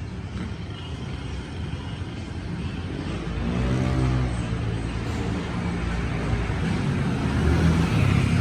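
Honda SH scooter engine running under throttle on a test ride, its pitch rising about halfway through over steady road noise, getting gradually louder.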